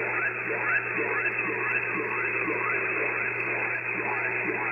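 Shortwave radio receiver audio tuned to 8.46 MHz, carrying an unidentified signal. It is a rapid, overlapping series of falling-pitch chirps, a few each second, over steady static, heard through the receiver's narrow audio bandwidth.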